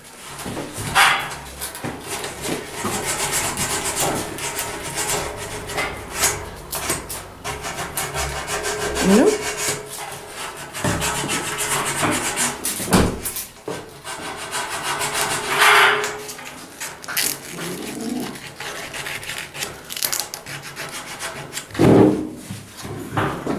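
Wooden pine board segments rubbing and scraping against each other and against a metal grill hood as they are worked into place to form a ring, with a couple of sharp knocks, about halfway through and near the end.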